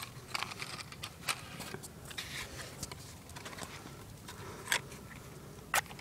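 Close handling noise: rustling and scraping with scattered sharp clicks, the loudest a few near the end.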